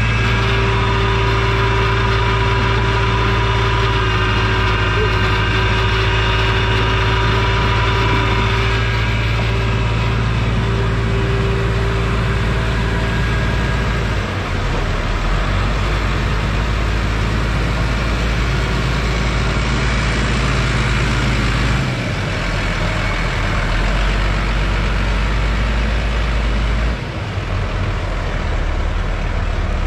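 New Holland tractor engine running under load as its hydraulic arms raise and tip a high-lift sugarcane basket. A steady high tone sits over the engine for roughly the first half. The engine note shifts about halfway through and changes twice more near the end.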